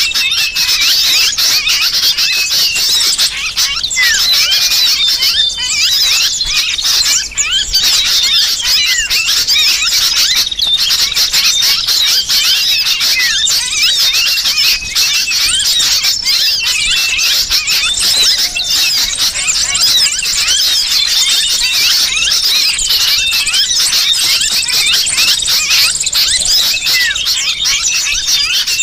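Bird-lure recording: a dense, unbroken chorus of many small birds' rapid, high, squeaky chirps and twittering calls, mixed with the squealing distress calls of a trapped ('kejepit') sooty-headed bulbul.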